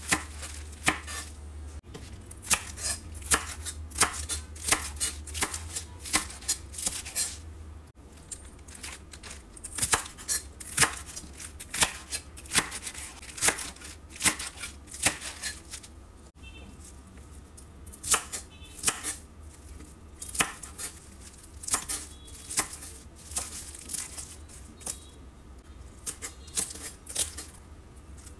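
Kitchen knife chopping leafy greens, napa cabbage and green onions on a wooden cutting board: sharp knocks of the blade on the board, about two a second in runs, with the rhythm broken a few times. A steady low hum runs underneath.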